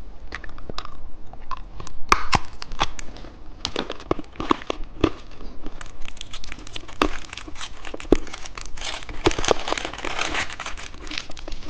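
Candy wrapper being torn open and crinkled by hand to unwrap a finger-shaped lollipop: a run of small crackles and clicks, busiest near the end.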